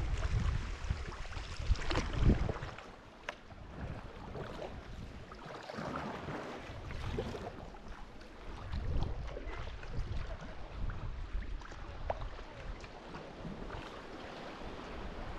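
Water splashing and lapping around a sea kayak as it is paddled, with wind buffeting the microphone in the first couple of seconds.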